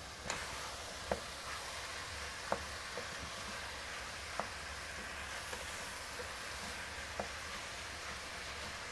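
Ground turkey with onion, garlic and mushroom sizzling steadily in a stainless steel pot as it browns. A wooden spoon stirs it, knocking sharply against the pot several times.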